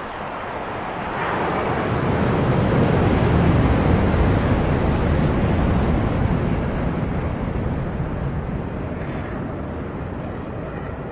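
Airplane flying overhead: a deep rumbling rush that builds from about a second in, is loudest around three to four seconds in, then slowly fades as it passes.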